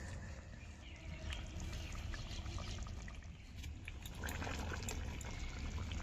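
Thick chicken curry gravy being poured from a kadai into a steel bowl, the liquid sound starting about four seconds in, after a stretch of faint background with a few light clinks.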